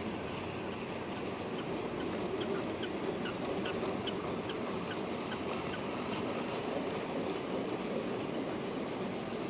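Model railway train running along the track, a steady running rumble with a run of short high-pitched squeaks, about two or three a second, that stop a little past halfway.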